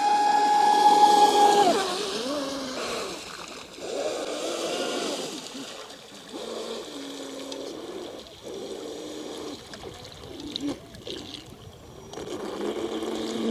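Traxxas Spartan RC speedboat's brushless electric motor whining under throttle, with water splash from the hull. The whine holds a steady high pitch at first, drops about two seconds in, then keeps rising and falling as the throttle is worked. It is fainter through the middle and louder again near the end.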